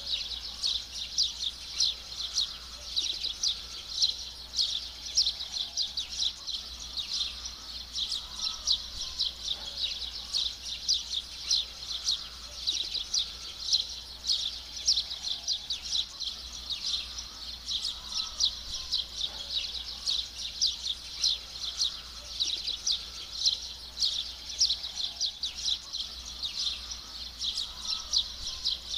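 A dense, steady chorus of rapid high-pitched chirps from small animals in an evening garden. A fainter, lower call repeats about every two seconds.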